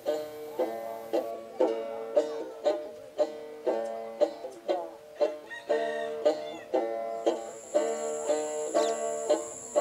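Music: a plucked string instrument picking out a melody in evenly spaced notes, about three a second.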